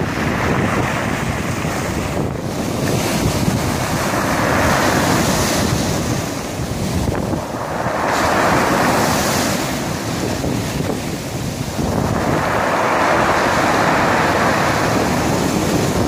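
Sea waves washing over a pebble beach. The surf hiss swells and falls back three times, with wind buffeting the microphone underneath.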